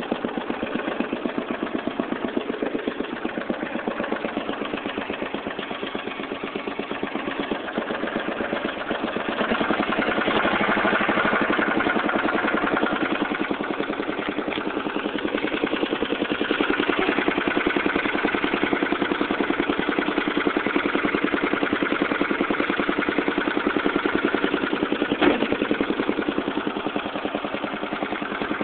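Lawn Chief 12/39 riding mower engine running with a steady, even pulse, getting louder about ten seconds in. Its throttle spring and governor have been refitted and adjusted, and it runs pretty good.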